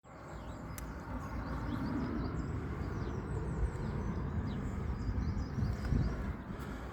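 Outdoor field ambience: a steady low rushing noise, swelling a little about two seconds in and again near the end, with small birds chirping throughout.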